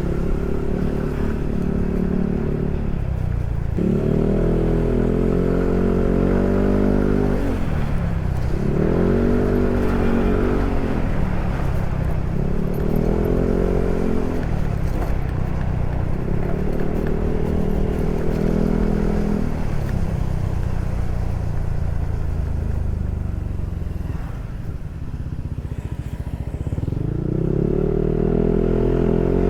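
Yamaha NMAX scooter's single-cylinder engine through a Proliner SR Neo Silent aftermarket exhaust, on the move. Its revs rise, hold steady, then drop back several times as the throttle is opened and closed. The last rise comes near the end.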